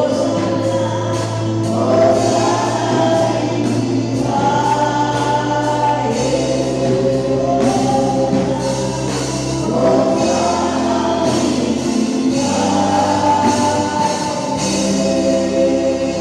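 Gospel choir singing with a steady beat of percussion and a sustained bass accompaniment.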